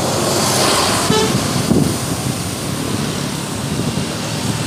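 Intercity bus passing in loud road noise, with a brief toot of its musical 'telolet' horn about a second in.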